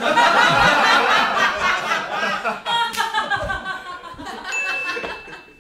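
Loud laughter from men, strongest at first and tapering off toward the end.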